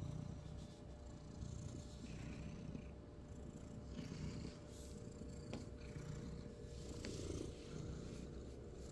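A domestic cat purring steadily at close range while being stroked under the chin and on the head.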